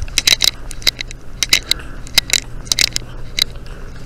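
Rubbing and handling noise on a body-worn spy pen camera's microphone: irregular scratchy clicks and crackles, several a second, as clothing rubs against the pen while the wearer walks, over a steady low hum.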